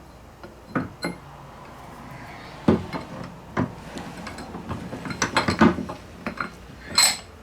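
Steel tools and parts clinking and knocking in an irregular series as a bearing puller is set up on a bearing on an M5OD transmission shaft. One clear ringing clink comes near the end.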